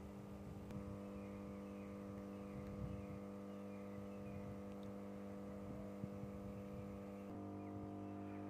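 132/33 kV step-down power transformer humming steadily, a deep electrical hum made of several steady tones. The hum grows fuller about a second in and again near the end.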